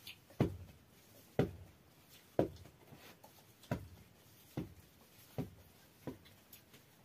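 Dough being kneaded by hand on a flour-dusted cloth on the floor: seven dull thumps about a second apart as it is pressed down, the later ones a little fainter.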